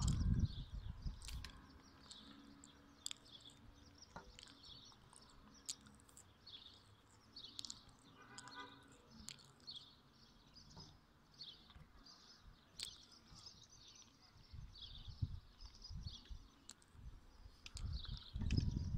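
Small birds chirping faintly over and over, with scattered sharp clicks and low thumps from a phone being handled against a telescope eyepiece near the start and end.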